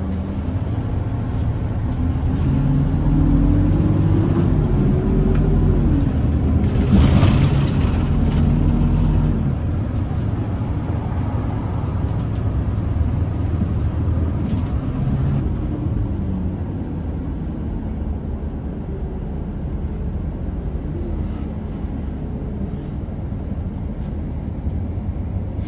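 Bus engine and road rumble heard from inside the cabin. The engine note rises as it accelerates in the first few seconds, and there is a brief hiss about seven seconds in.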